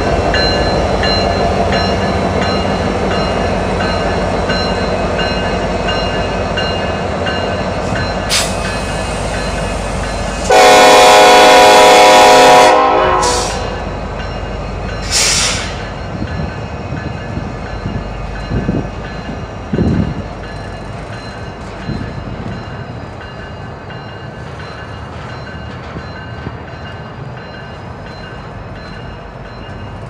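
Union Pacific freight train rolling past, its wheels and locomotive engines making a steady rumble that slowly fades. About ten seconds in, a Nathan K5LLA locomotive air horn sounds one loud blast of about two seconds, loud enough to overload the recording.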